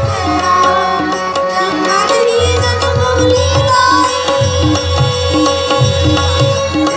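Live Indian folk music: a harmonium melody over a steady tabla beat.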